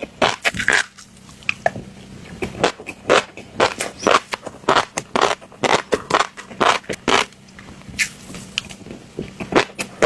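Fish roe crackling and crunching wet under repeated short strokes, about two a second, with a short lull near the end.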